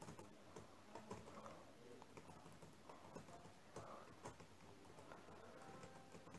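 Faint, scattered computer keyboard clicks over quiet room tone: keystrokes pasting text line by line into a code editor.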